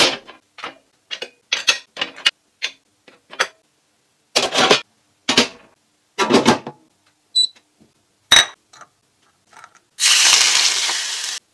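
A string of short clinks and knocks as ceramic plates and a stainless steel steamer are handled, two of them ringing metallic clinks a little past halfway. Near the end a steady hissing rush lasts about a second and a half.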